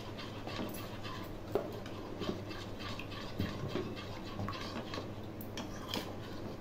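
Metal spoon stirring thin flour-and-water batter in a bowl: irregular light clinks and taps of the spoon against the bowl, with a faint steady hum underneath.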